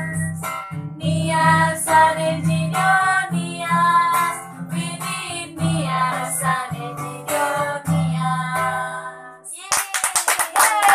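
Acoustic guitar strummed as young women sing together. The song ends about a second and a half before the end, followed by a quick run of hand claps.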